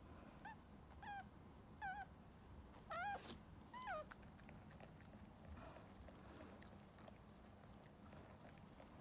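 Newborn toy poodle puppy crying in five short high squeaks over the first four seconds, the last two longer and bending down in pitch. Faint rustling follows.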